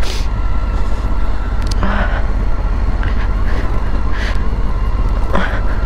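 Motorcycle coasting slowly down a loose gravel road: a steady low rumble of tyres and wind on a helmet-mounted microphone, with a few short clicks of stones.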